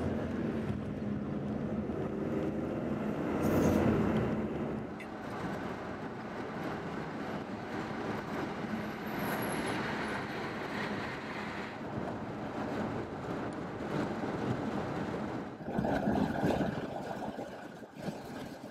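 Steady road and wind noise inside the cabin of a 2015 Ford Mustang EcoBoost at highway speed. An engine tone is heard near the start, and the noise swells louder about three to four seconds in.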